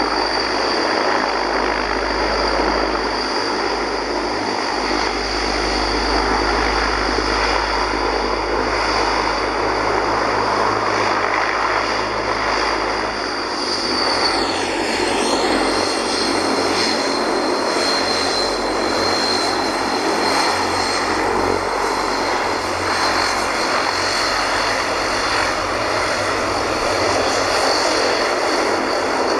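Transall C-160 transport aircraft's two Rolls-Royce Tyne turboprop engines running as it taxis: a steady propeller drone with a high turbine whine that drops slightly in pitch about halfway through as the aircraft passes by.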